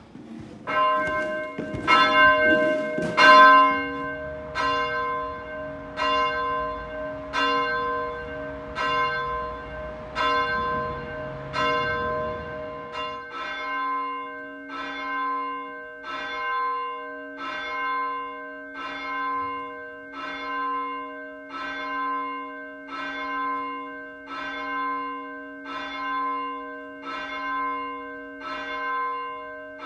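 A single church bell tolling, the same note struck over and over: about one stroke every second and a half at first, quickening to about one a second from roughly halfway. A few sharp knocks sound about two to three seconds in.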